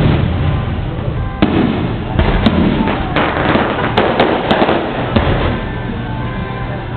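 Aerial fireworks shells bursting overhead: a run of sharp bangs with a rumbling echo, coming several a second through the middle and thinning out near the end.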